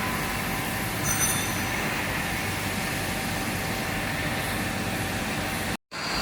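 Steady industrial machinery running, a constant mechanical rush with a faint steady whine, cutting out for a split second near the end.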